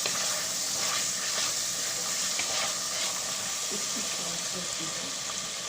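Pieces of chicken breast sizzling steadily as they fry in a pan over medium-high heat.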